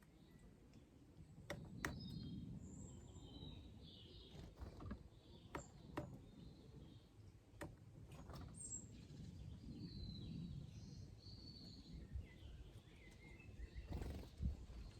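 Faint outdoor birdsong: scattered short chirps and calls of small birds, with a few sharp clicks and a low background rumble.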